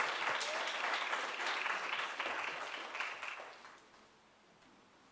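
Audience applauding, fading out about three and a half seconds in.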